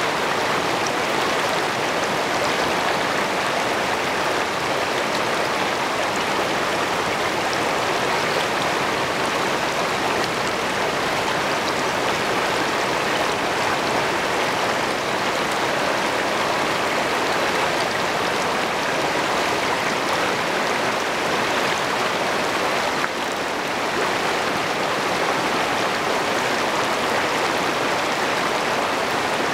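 Shallow river rapids rushing over rocks close to the microphone: a steady, loud rush of white water.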